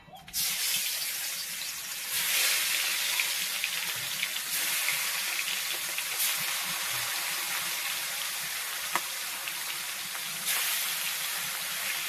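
Masala-coated fish pieces sizzling in hot oil in a kadai, deep-frying. The sizzle starts suddenly about half a second in and gets louder in steps as more pieces are laid in, around two, four and a half, and ten and a half seconds.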